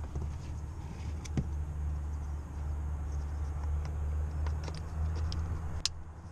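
A few sharp clicks and knocks from hands working the clamp and tilt controls on a Yamaha 6 hp outboard's transom bracket, the loudest near the end, over a steady low rumble.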